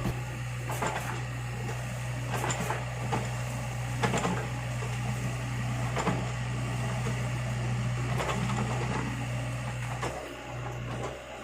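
LiuGong mini excavator's diesel engine running steadily under load, with sharp knocks about every two seconds as it digs, dropping off briefly near the end.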